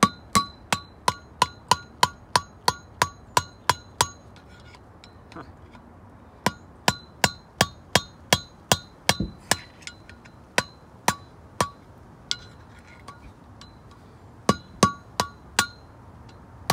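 Hammer striking a screwdriver used as a drift to knock the inner bearing and seal out of a Dexter trailer axle's wheel hub. Sharp metal-on-metal strikes with a ringing tone, about three a second, in three runs separated by short pauses.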